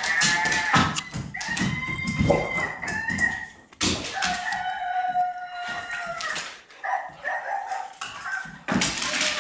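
Pet Qwerks Animal Sounds Babble Ball, a toy ball that plays recorded animal calls when it moves, sounding two long calls in the middle, one of them a rooster crow, as the dog shakes it. The plastic cage ball knocks and clatters in the dog's mouth and against the floor.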